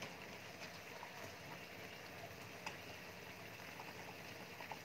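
Chicken pieces simmering in liquid in a pan on the stove: faint bubbling with scattered small pops.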